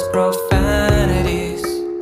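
Background music: a pop song with a steady beat.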